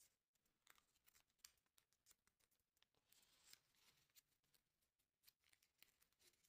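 Faint crinkling and rustling of a small square of thin paper being folded and creased by hand, with scattered sharp crackles and a longer rustle about three seconds in.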